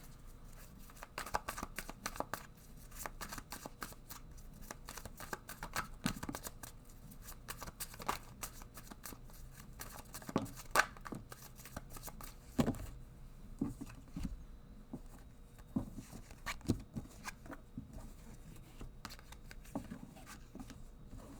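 A deck of tarot cards being shuffled and handled, with many quick papery riffles and taps, dense at first and thinning out to separate clicks later on.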